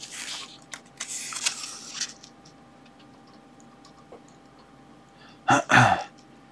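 Paper pages of a spiral-bound book rustling as a page is turned and smoothed flat, mostly in the first two seconds, then a few faint ticks.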